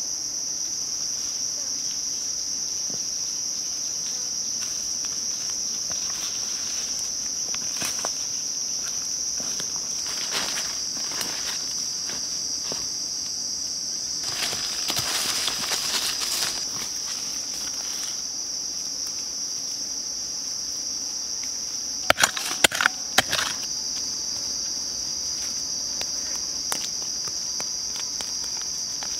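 Steady high-pitched drone of an insect chorus. Over it there are bouts of rustling through leafy undergrowth near the middle, and a quick run of sharp knocks about three quarters of the way through.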